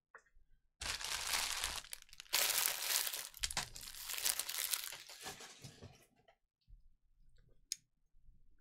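Plastic trading-card wrapping crinkling and tearing as packs or a box are ripped open: a short stretch of about a second, then a louder one of about three seconds, followed by a few faint handling clicks and one sharp tick near the end.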